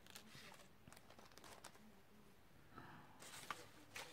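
Near silence, with faint rustles and light ticks of thin paper die-cuts being handled on a tabletop, a little louder about three seconds in.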